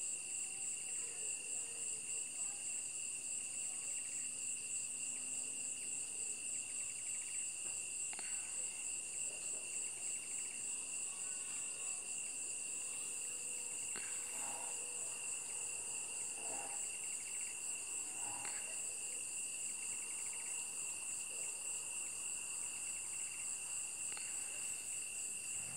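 Steady, shrill insect chorus: continuous fast trilling at several high pitches, with a few faint, brief background sounds around the middle.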